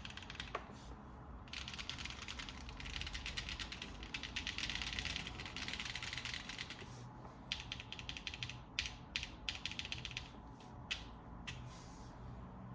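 Mechanical keyboard typing on Kailh Box Taro switches under GMK Dolch keycaps in a Cycle7 board with no case foam. After a few keystrokes comes a fast, continuous run of clicks lasting several seconds, then slower, separate keypresses near the end.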